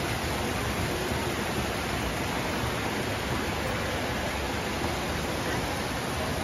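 Water falling over the ledge of an indoor stone fountain's small cascade, a steady even rush of splashing water.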